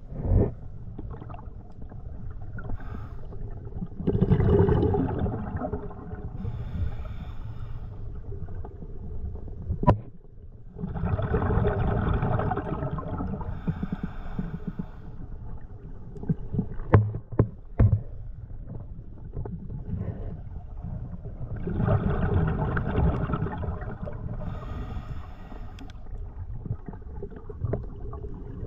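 Scuba diver breathing through a regulator underwater: three long rushes of breath and exhaled bubbles several seconds apart, over a steady low underwater rumble. A few sharp knocks fall between the breaths.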